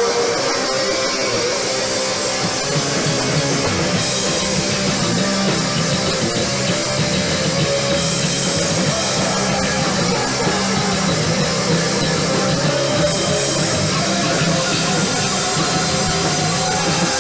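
Punk rock band playing live, with electric guitar and drum kit, loud and continuous.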